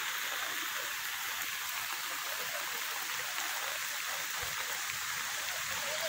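Steady hiss of rain falling on a swollen, muddy river in flood, mixed with the rush of the floodwater.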